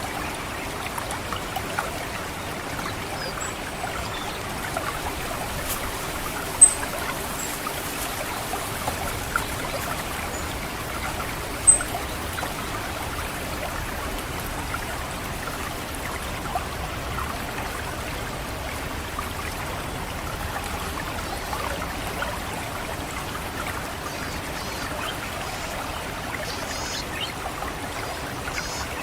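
Water trickling steadily through rice paddy channels, with a few sharp, very short high-pitched 'cit' calls of an orange-headed thrush, the loudest about 7 and 12 seconds in.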